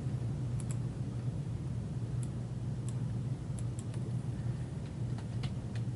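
A steady low hum with about nine faint, scattered clicks from a computer being used to look something up.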